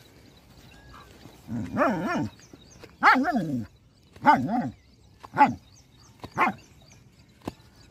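Dogs barking and yelping while play-fighting among themselves: about five separate calls, roughly a second apart.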